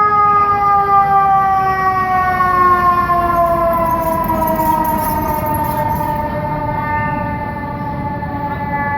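Fire engine siren wailing: the pitch falls slowly and steadily for several seconds, then starts to rise again near the end, over the noise of city traffic.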